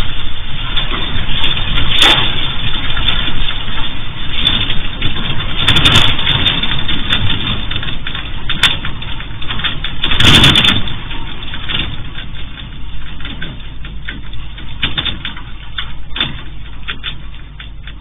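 Earthquake rumble through a security camera's microphone: a loud, continuous deep rumble and roar that surges about two, six and ten seconds in. It then slowly fades while sharp rattling clicks grow more frequent near the end.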